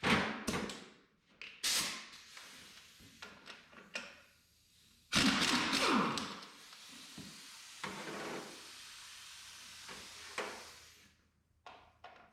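Hand tools and metal parts of a tractor hydraulic control unit being handled during teardown: several sharp knocks and clanks. About five seconds in, a loud rushing hiss starts suddenly and fades away over the next several seconds.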